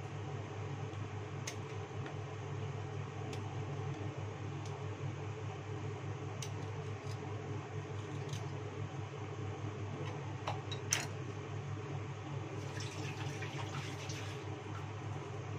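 Steady low mechanical hum, with scattered light taps and clinks as palm sugar is sliced with a knife and handled in a stainless steel bowl; the sharpest clink comes about eleven seconds in, followed by a short rattle.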